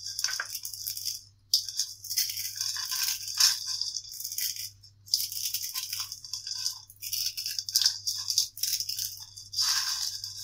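Dry Maggi instant noodles being crushed by hand in a bowl: crisp crackling and rattling crunches in repeated bouts of a second or two, with short pauses between them.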